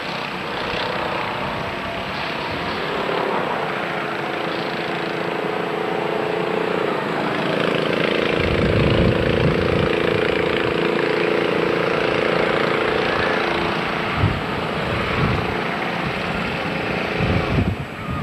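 A steady engine drone. A held hum sets in a few seconds in and stops shortly before the end, over a constant noisy background, with low rumbling buffets coming and going in the second half.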